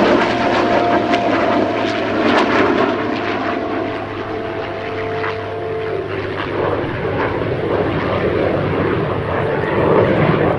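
A P-51 Mustang's Packard-built Merlin V-12 and an F-22 Raptor's jet engines flying past together in formation. The Mustang's steady propeller drone carries pitched tones for about six seconds, then gives way to a rougher, noisier rush.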